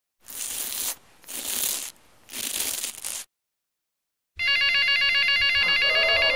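Three short hissing bursts, then about four seconds in a landline telephone rings with a fast electronic warbling trill for about two seconds, the call that the answering machine then picks up.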